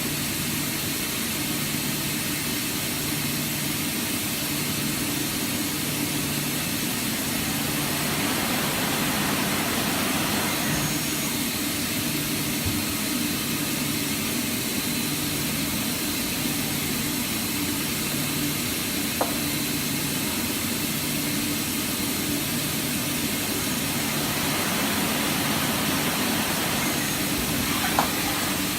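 Mazak Integrex 300-IV ST CNC turning center running under power: a steady hum and hiss, with a low tone pulsing on and off about once a second. Two sharp ticks, one past the middle and one near the end.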